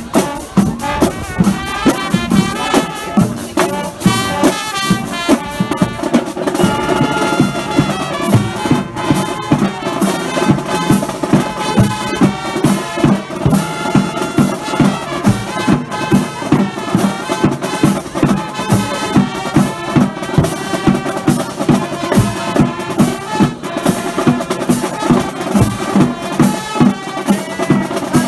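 High school marching band playing a pep tune in the stands: brass carrying the melody over a steady drumline beat of about two hits a second.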